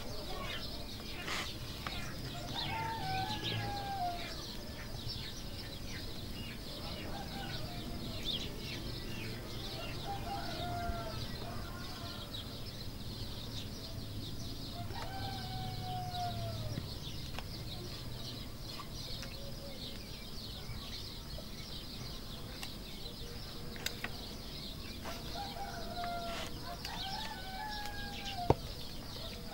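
Domestic chickens calling every few seconds, short falling calls, over a faint low rumble, with scattered small clicks and a sharp tap near the end.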